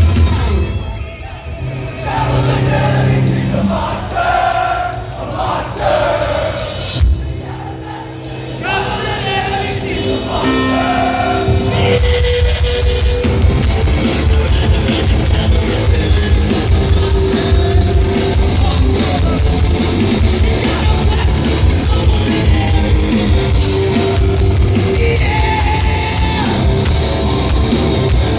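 Live hardcore band playing on stage with vocals. A quieter, sparser passage with singing opens, and about twelve seconds in the full band comes in loud and dense.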